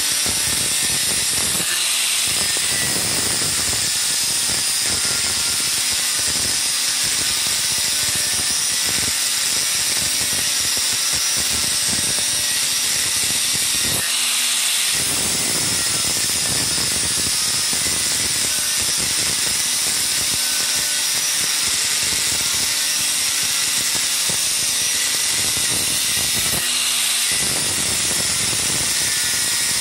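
Electric angle grinder with a thin abrasive cut-off disc cutting through a steel bar, a steady loud grinding whine. About halfway through the disc briefly leaves the cut and runs free before biting into the steel again.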